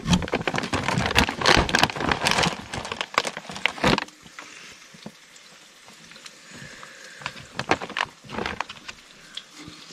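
A dense clatter of small sharp clicks and knocks for about four seconds, then quieter with a few scattered clicks.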